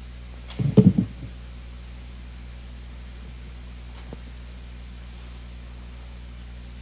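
Microphone handling noise: a short cluster of low thumps and rubbing about a second in as the stand-mounted microphone is gripped and adjusted, then a faint click around four seconds. Underneath runs a steady low electrical hum from the sound system.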